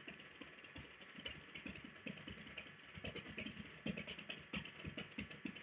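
Feet stamping rapidly in place on a floor: a fast, irregular patter of light, faint footfalls.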